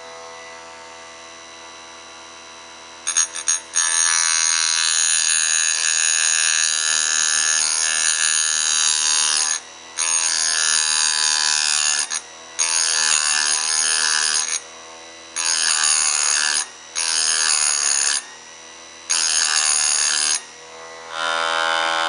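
Electric grinder running with a steady hum, then about three seconds in the wheel bites into the hardened steel gear dogs: a loud, high grinding in about seven passes with short breaks between them. The dogs are being ground clean of their roundover, the wear that let the KX500 jump out of gear.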